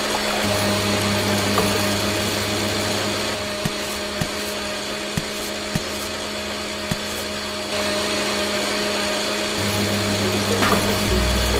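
Small electric toy motor running steadily with a humming whine, driving the belt and pulley of a miniature model juice machine. A few light knocks come in the middle.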